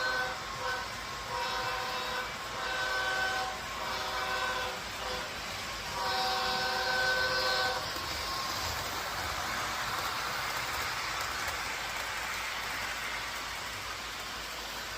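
Train horn sounding a series of blasts, short and long, each a chord of several notes, the last and longest about six seconds in. After it comes a steady rushing noise.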